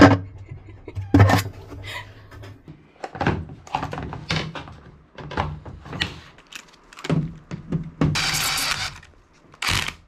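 Hands sorting through a plastic driver-bit and socket case, with irregular clicks and knocks of metal bits and sockets. A hiss lasting about a second comes about eight seconds in.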